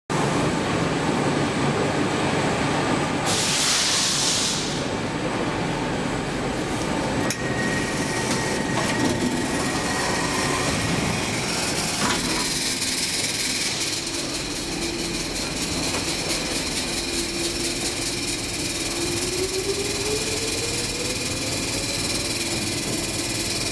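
Metro station din with rail noise: a continuous rumble, a burst of air hiss about three seconds in, two sharp clicks, and a motor whine rising in pitch over the last few seconds.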